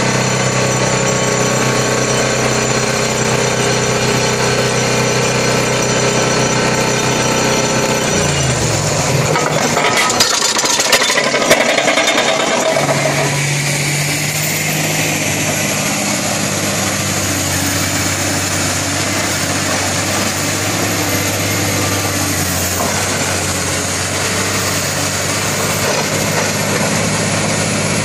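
Excavator-mounted vibratory pile hammer driving a steel sheet pile with a steady, even hum; about eight seconds in its vibration winds down, falling in pitch. A couple of seconds of sharp knocks and clanks follow, then the excavator's engine running steadily.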